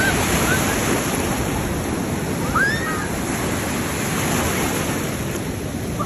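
Sea waves breaking and washing through shallow surf, a steady rush of white water.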